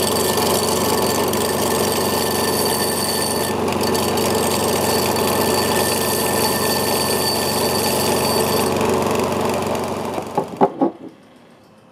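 Gryphon wet belt sander running steadily while the cut edge of a glass bottle is held against its abrasive belt to bevel it, a constant motor hum with grinding noise. About ten seconds in come a few sharp knocks, and then the sound cuts off suddenly.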